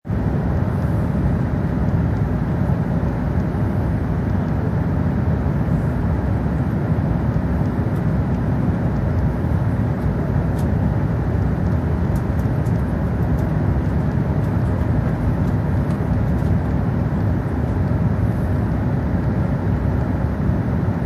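Steady cabin noise inside an Airbus A380 as it taxis: its Rolls-Royce Trent 900 engines at low taxi thrust heard through the fuselage as an even, low rumble that does not rise or fall.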